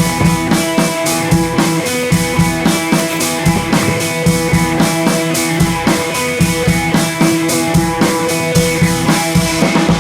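Background music with a steady drum-kit beat and guitar, rock style.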